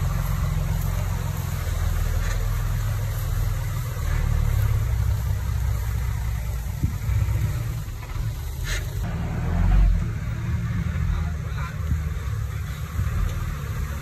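Komatsu D20P mini bulldozer's diesel engine running steadily with a deep, low note. A brief sharp clank comes a little past halfway, and the engine swells briefly about two-thirds of the way in.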